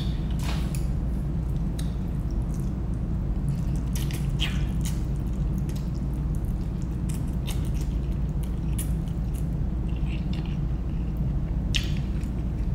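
A person eating spicy instant noodles: wet chewing and slurping, with short sharp mouth clicks and smacks scattered through. A steady low hum runs underneath.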